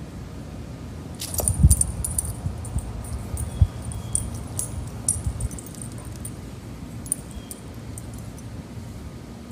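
Light metallic jingling and clicking for several seconds, with a couple of soft thumps about one and a half and three and a half seconds in, over a steady low rumble.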